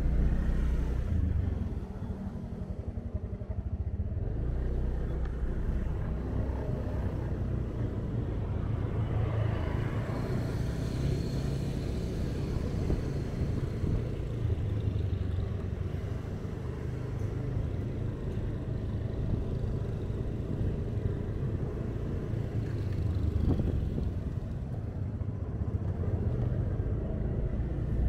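Steady low rumble of engine and road noise from a vehicle riding through city traffic. A brighter hiss swells briefly about ten seconds in.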